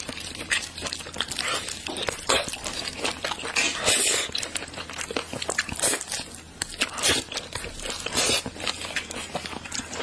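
Close-miked wet mouth sounds of biting, sucking and chewing on a soft braised blood sausage: a dense run of irregular clicks and smacks, with a few louder sucking bursts about four, six and eight seconds in.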